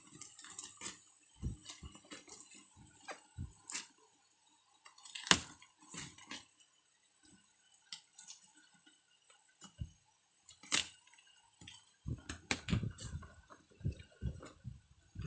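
Cardboard packaging being cut open by hand: scattered clicks, taps and scraping as the box is worked open slowly. A few sharper clicks stand out, and the handling gets busier near the end.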